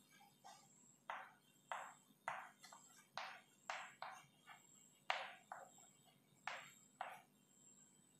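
Chalk writing on a chalkboard: a string of short, faint chalk taps and scratches, irregularly spaced, one for each letter stroke.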